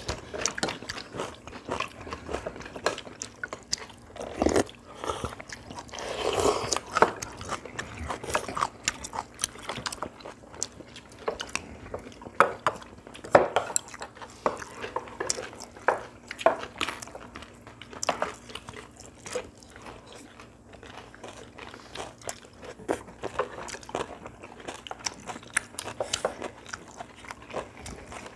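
Several people eating at a table: chewing and crunching, with frequent small clicks of chopsticks and spoons against ceramic bowls and plates.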